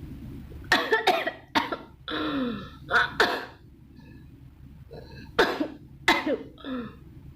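A person coughing repeatedly in sharp, short bursts, in two clusters with a quieter gap between, the reflex coughing set off by a nasal swab being pushed up the nose.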